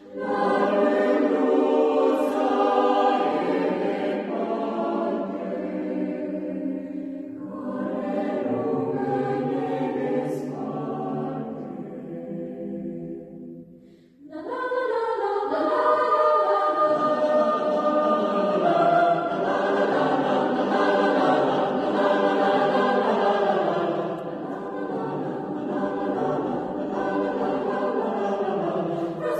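Mixed youth choir singing a cappella in several voice parts, with a brief break about halfway through before the next phrase comes back in full.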